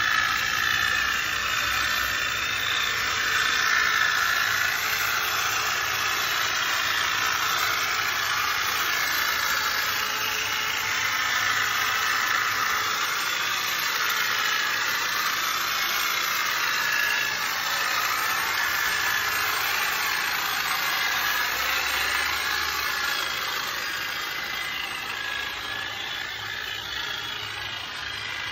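Corded electric hedge trimmer running continuously, its motor and reciprocating blades buzzing as it cuts through a creeping fig hedge, the pitch wavering slightly under load; a little quieter near the end.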